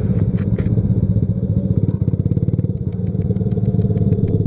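Motorcycle engine running as the bike rides along, a steady, rapid low pulsing of its firing strokes, with a couple of light clicks in the first second.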